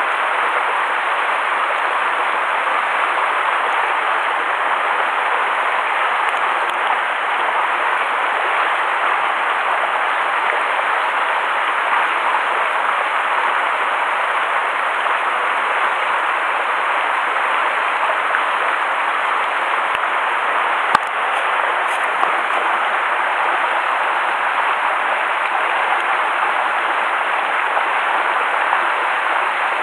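Steady rush of a mountain stream spilling over a small cascade of rocks, with a single short click about two-thirds of the way through.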